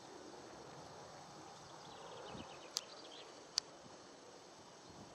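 Faint open-air background noise, broken by two short sharp clicks a little under a second apart near the middle.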